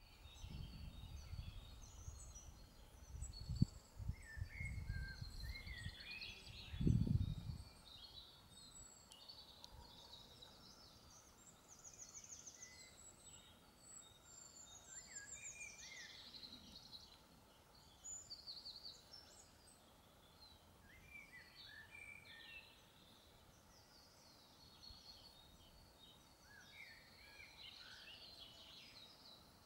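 Several birds singing at once, overlapping chirps and warbling phrases all through. In the first eight seconds a low rumbling with a couple of thumps, the loudest about seven seconds in.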